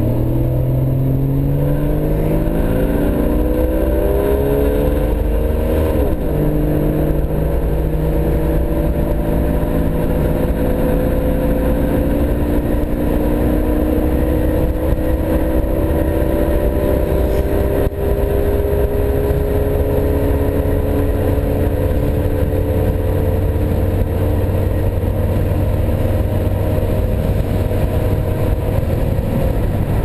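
A 1992 Jeep Cherokee XJ's 4.0 HO straight-six, with a Flowmaster muffler, heard from inside the cabin while driving. The revs climb, drop with a gear change about six seconds in, then rise slowly and steadily.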